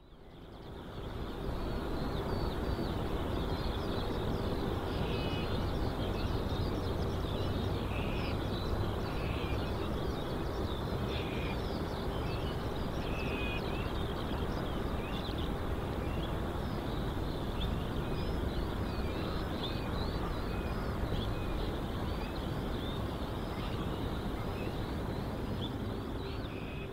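Birds chirping over a steady low rumble and hum, fading in at the start and out at the end.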